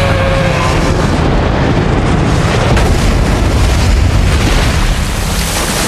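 Film sound effect of a huge alien spacecraft plunging through the atmosphere: a loud, steady roar with a heavy low end.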